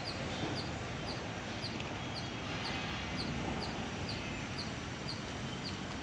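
Hot air blower running with a steady rushing noise while heating the edge of a self-adhesive bituminous waterproofing membrane. A bird chirps over it, short high notes about twice a second.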